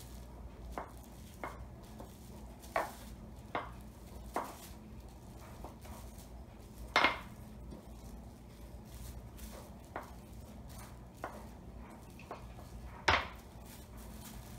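Wooden rolling pin knocking against a cutting board while dough is rolled under plastic wrap: a dozen or so irregular knocks, the two loudest about seven seconds in and near the end.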